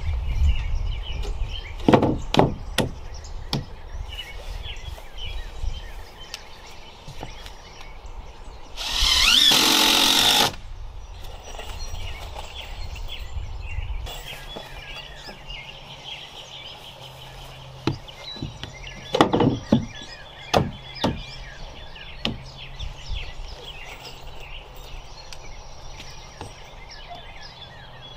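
Wooden stair treads being knocked and set into place: a few sharp knocks a couple of seconds in and another cluster about two-thirds of the way through, with a power tool running once for about a second and a half in between. Birds chirp faintly in the background.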